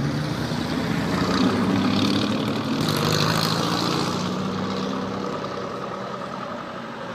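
Classic car's engine running as it passes, growing louder for the first two seconds or so, then slowly fading away.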